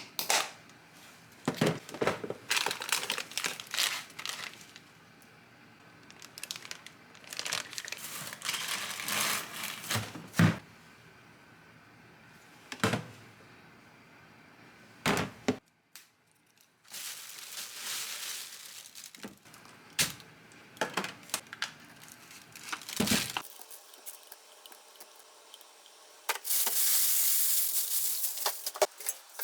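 Plastic bags and food packaging crinkling and tearing, with scattered knocks and clatters of containers being handled. Near the end a steady hiss begins.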